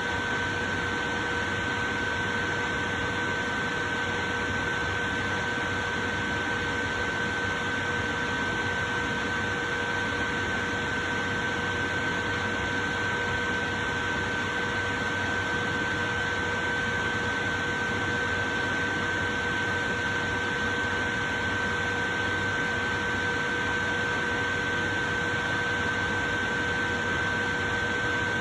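Portable electric fan running steadily: an even hiss of moving air with a steady, thin high-pitched whine over it that never changes.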